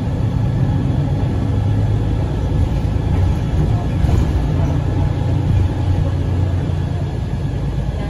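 Steady low rumble of a moving vehicle, heard from inside the passenger cabin while it drives along.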